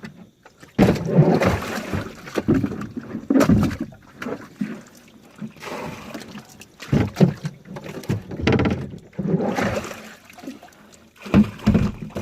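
Water sloshing and splashing in irregular bursts as it is bailed out of a small boat that flooded because its drain plug was left out.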